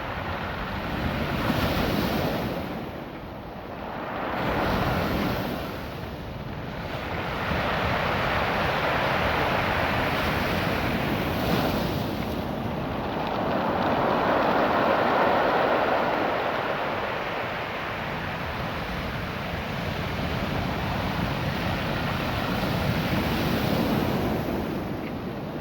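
Ocean waves washing up and back over a beach of small rounded cobbles, the rush swelling and easing every few seconds.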